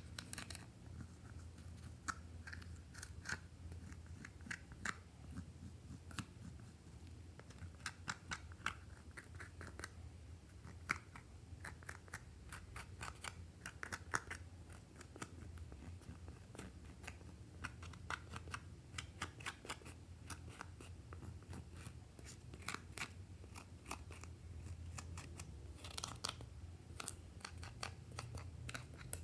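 Metal palette knife scraping and crumbling pressed eyeshadow powder out of its pans: faint, irregular scratches and small crunchy clicks, a few of them sharper now and then.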